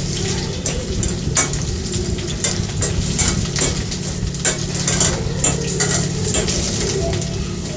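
Pieces of raw jackfruit sizzling as they fry in hot oil in a pan. Many irregular clicks and scrapes come from a utensil stirring them against the pan.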